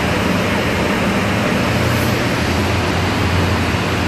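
Loud, steady machinery noise: an even hiss over a low hum that does not change.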